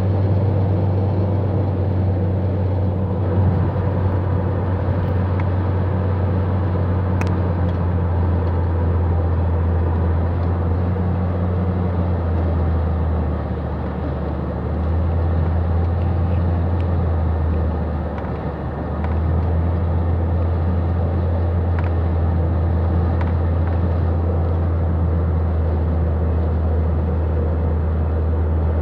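Road noise heard from inside a car cruising at freeway speed: a steady low drone of engine and tyres that dips briefly about halfway through and again a few seconds later.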